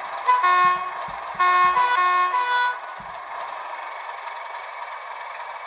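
Hornby TTS sound decoder in an OO gauge class 31 model sounding the locomotive's two-tone horn through its small speaker: a short blast, then a longer one that switches back and forth between the two notes. The decoder's recorded diesel idle runs steadily underneath.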